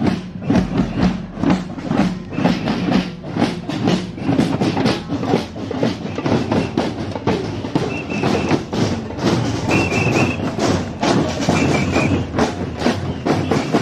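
A marching drum group playing snare drums and bass drums in a steady, driving rhythm.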